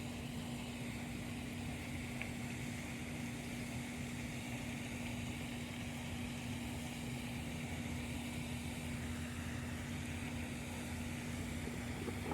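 A motor running steadily, a constant low hum with one held tone.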